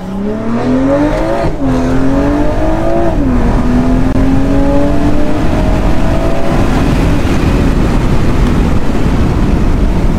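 BMW M340i's turbocharged inline-six accelerating hard through a valved free-flow exhaust with the valves open, heard from inside the cabin with the windows down. The pitch climbs, drops sharply twice as it shifts up, about 1.5 and 3 seconds in, then climbs slowly and gives way to a steady rush of wind noise.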